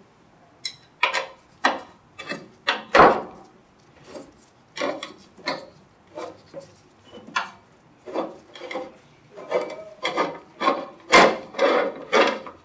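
Hex key turning out the 4 mm Allen head screws at the base of a dry scroll pump's cowling: a string of short scraping, rasping strokes, uneven and coming closer together near the end.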